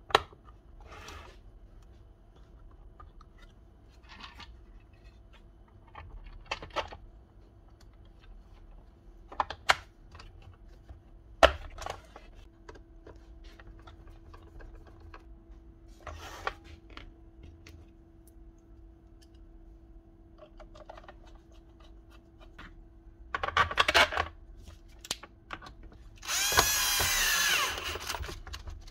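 Scattered small clicks and knocks of parts being handled over a faint steady hum. Near the end an electric drill runs for about a second and a half, its pitch dipping and wavering.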